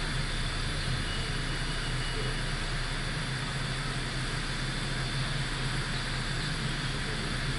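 Steady road noise of a car on the move: tyre and wind noise with a low engine hum underneath, even throughout.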